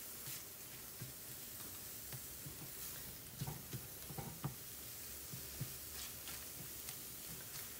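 Scrambled eggs with bell peppers sizzling faintly in a nonstick skillet, while a wooden spatula scrapes and taps softly in the pan a few times.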